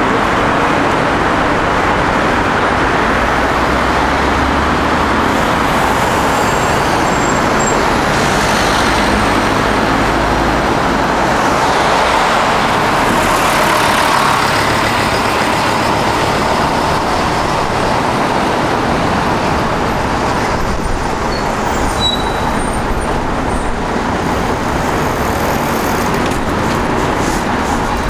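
Steady city street traffic: cars and buses driving past, with a heavier vehicle's low engine rumble strongest about five to ten seconds in.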